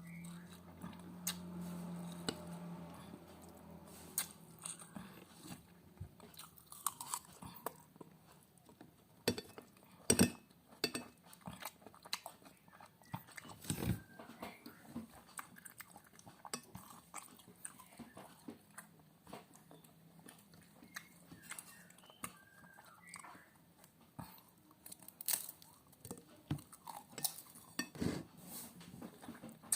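Close-miked chewing and crunching of food, with scattered sharp clicks of a spoon or fork against a plate.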